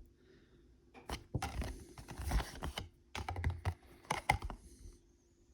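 Hands handling cardboard game cards and their packaging: a run of light, irregular clicks and rustles, busiest between about one and four and a half seconds in.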